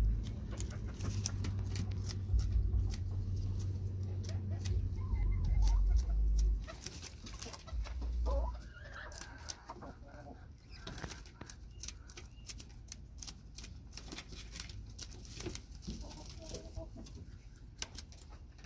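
Red junglefowl pecking at leafy greens held in a hand: rapid, irregular beak clicks and snaps as they tear at the leaves, with a few soft clucking calls around the middle and again near the end. A low rumble runs through the first six seconds or so.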